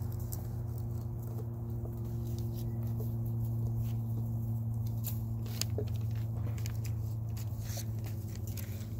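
Five-week-old Belgian Malinois puppies moving about on dry grass and a plastic slatted platform and chewing: scattered light clicks, crunches and rustles of paws, claws and mouths. A steady low hum runs underneath.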